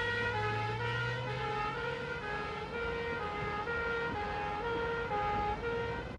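Police car two-tone siren alternating between a higher and a lower note, about two notes a second. A low hum sits under it for the first couple of seconds.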